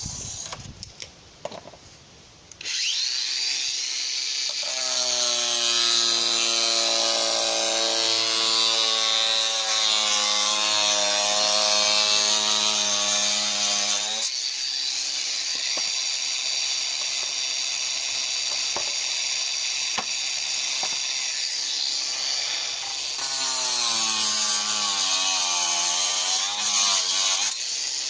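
Angle grinder cutting slate, starting up about two and a half seconds in after a few light knocks. Its motor whine dips and recovers in pitch as the disc bites into the slate, over a harsh cutting hiss.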